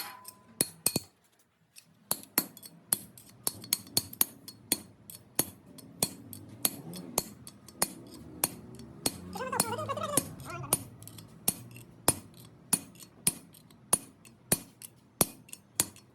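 Repeated sharp metal-on-metal strikes, about two to three a second, as a hammer works on a tractor axle bearing.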